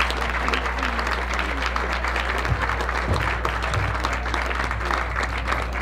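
Audience applauding steadily, with a steady low hum underneath.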